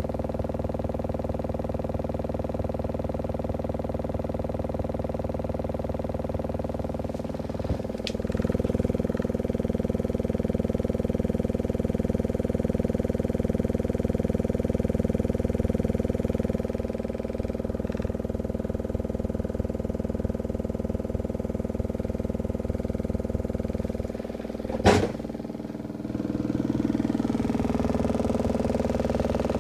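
Homemade subwoofer playing a 20 Hz test tone: a steady low drone with many overtones, stepping up a little in level about eight seconds in. A single sharp knock comes near the end, with the drone dipping briefly before it returns.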